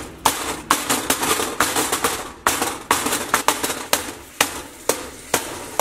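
Wooden spatula chopping and stirring ground beef in a stainless steel skillet, knocking against the pan about twice a second in a steady rhythm, over the sizzle of the browning meat.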